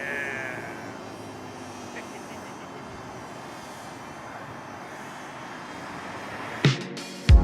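A propeller aircraft's engine droning faintly overhead and fading, with a short falling bird chirp at the start. A sharp click comes near the end.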